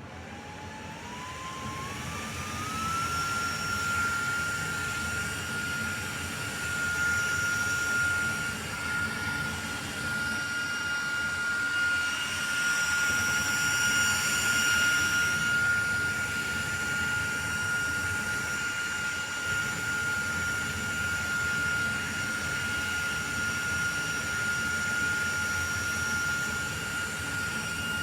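Small battery-powered portable fan spinning up over the first three seconds, its motor whine rising in pitch, then running steadily with a high whine over a rush of air. The airy hiss swells for a few seconds midway.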